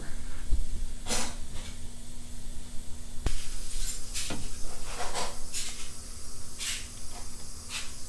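Scattered rustles and light knocks from hands handling a clamp meter and its test leads, with a sharp click about three seconds in, over a faint steady hum.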